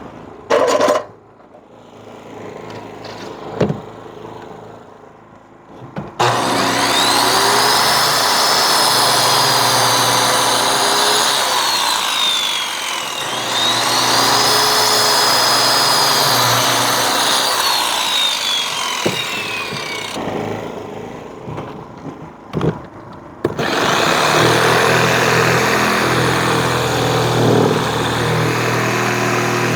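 Electric power saw cutting through pipe. Its motor whines up to speed, holds and winds down twice, then cuts again steadily near the end, after a few knocks in the opening seconds.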